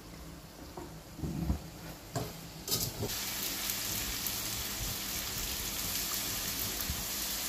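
Ginger chicken frying in an aluminium wok over a gas flame, stirred with a spatula. A few knocks come first, then about three seconds in a steady sizzle starts suddenly and keeps going.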